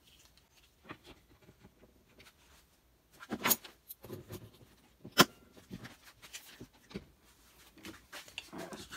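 Clamp being fastened to a thin wooden board on a workbench: scattered clicks and knocks of the clamp and the wood being handled. The two sharpest knocks come about three and a half and five seconds in.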